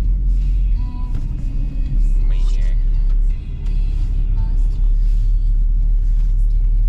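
Car interior while driving: a steady low rumble of engine and road noise, with music playing faintly over it.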